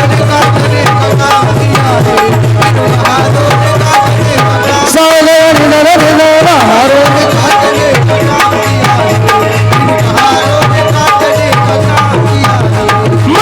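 Instrumental interlude in a Marathi Bhimgeet: a steady, fast tabla rhythm under a wavering melody line, with no singing.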